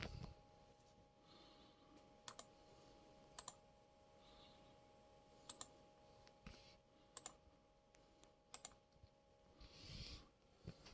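Computer clicking: about five sharp double clicks, one every second or two, over a quiet background.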